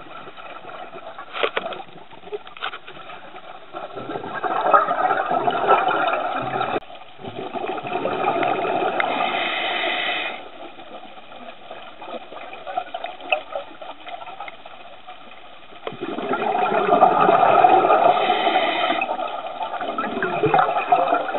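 Scuba diver breathing through a regulator underwater: two long bursts of bubbling exhalation, one starting about four seconds in and one about sixteen seconds in, with quieter stretches between.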